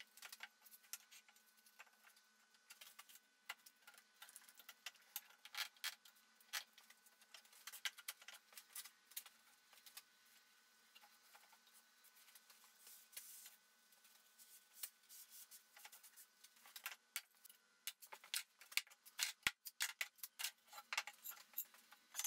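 Faint, irregular clicks and light knocks of hand work: one-handed trigger bar clamps being squeezed tight on a plywood frame and parts being handled, the clicks coming thicker near the end.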